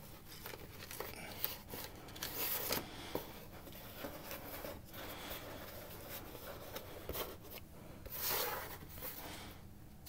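Baseball trading cards being shuffled and slid against one another by hand: faint rustling and light clicks, with louder swishes of cards sliding about two and a half seconds in and again about eight seconds in.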